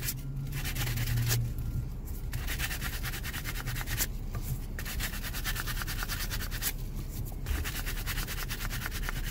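Sandpaper being rubbed by hand over a hard plastic e-brake handle: fast, fine scratchy strokes in spells of one to two seconds, broken by a few short pauses. The plastic is being smoothed to knock down its grain after a bite repair.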